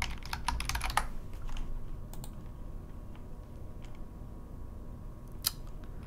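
Typing on a computer keyboard: a quick run of keystrokes in the first second, then a few scattered clicks, one sharper than the rest about five and a half seconds in.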